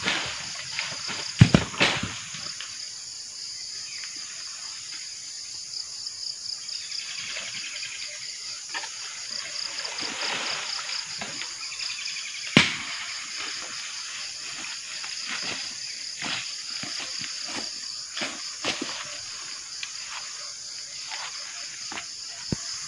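Steady, high, pulsing drone of an insect chorus, with scattered small crackles and knocks over it: two sharp knocks near the start and a heavy thump about halfway through.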